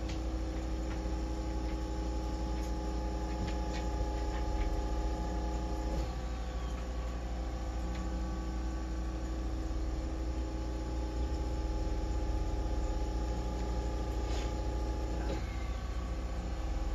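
Steady electrical hum with a set of higher steady tones over it that drop out about six seconds in and return near the end, and a few faint clicks.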